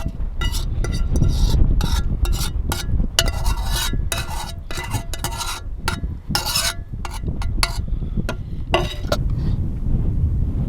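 Short, repeated scraping and rustling noises, a dozen or so, over the steady low rumble of strong wind.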